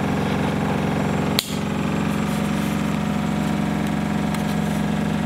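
Samsung WW10N645RBW front-loading washing machine on its high-speed spin: a steady, loud hum that reflects off the walls and floor of the tight alcove it is fitted into. A single sharp click about one and a half seconds in.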